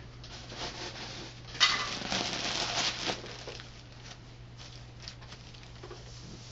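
Rustling and crinkling as polyester fiberfill is pulled from its plastic bag and pushed into a fabric pillow cover, loudest for about a second and a half starting around a second and a half in.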